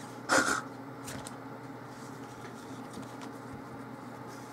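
Handling noise of a smartphone in a fabric folio case on a wooden desk: one brief, loud rustle and scrape near the start as the case is folded into a stand, a faint click about a second in, then only a low steady room hum.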